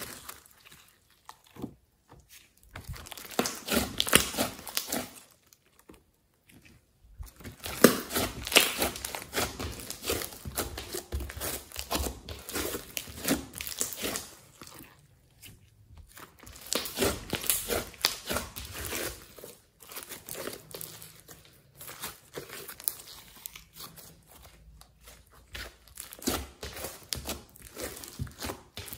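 Hands squeezing, stretching and pressing thick slime with clay and glitter mixed in, giving a dense wet crackling and clicking. It comes in bouts of several seconds with short pauses between.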